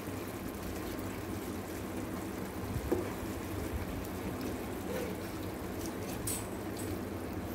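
Chicken in yogurt gravy simmering in a pan on low flame, a steady faint bubbling, with a few light knocks of the stirring spoon against the pan.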